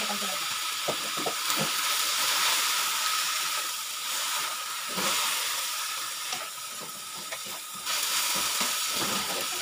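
Sweet potato leaves sizzling in a hot wok as they are stir-fried, a steady frying hiss with short scrapes and knocks of a wooden spatula against the pan.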